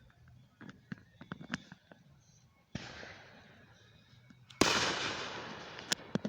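Fireworks going off: scattered small pops, then a sudden rush of noise about three seconds in that fades away. The loudest event is a sharp bang about four and a half seconds in, with a long fading tail, followed by a couple more pops near the end.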